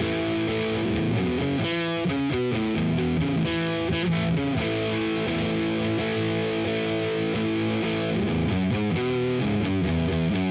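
Background music: distorted electric guitar playing held chords, with effects.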